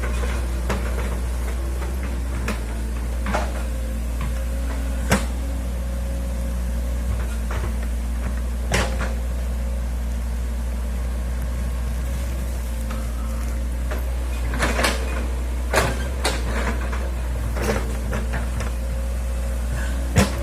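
Hitachi excavator's diesel engine running steadily while it digs, with a sharp knock or clank every few seconds from the bucket and linkage. A steady whine sets in about three seconds in.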